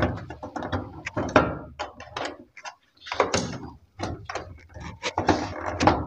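Irregular clicks, knocks and short scrapes as the control-panel cover on top of a Samsung top-load washing machine is pushed and pried loose by hand.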